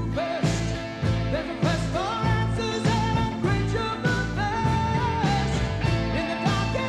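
Song with singing over a steady drum beat of about two hits a second, laid over the footage as a music track.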